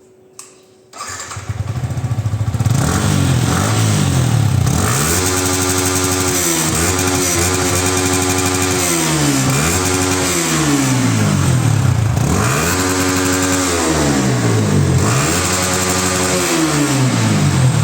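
Yamaha R15 V3's 155 cc single-cylinder engine started on its stock exhaust: a short click, the engine catches about a second in and idles, then is revved up and let fall back about five times.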